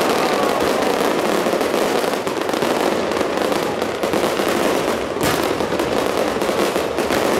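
Fireworks display going off: aerial shells bursting among ground fountains, giving a loud, dense, unbroken crackle of many rapid pops and bangs.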